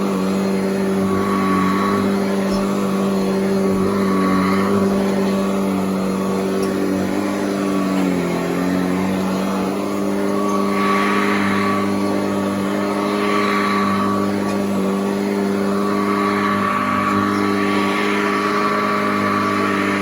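Hoover Model 28 upright vacuum cleaner running: a steady motor hum with a rush of air that swells and fades every couple of seconds. The pitch sags briefly about eight seconds in.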